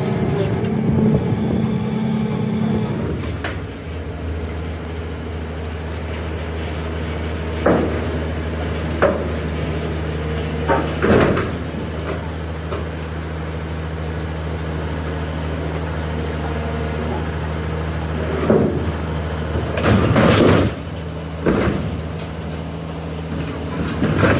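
A large engine idling steadily, its note dropping to a lower pitch about three seconds in. Several short metallic clanks and knocks sound over it, the longest near the end.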